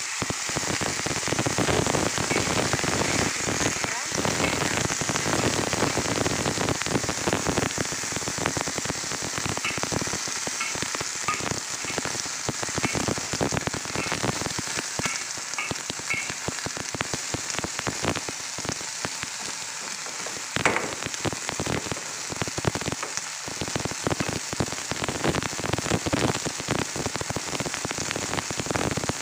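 Bok choy stir-frying in a wok over high heat: water poured onto the hot wok sizzles and crackles steadily, getting louder right at the start. A metal spatula scrapes and taps against the wok now and then.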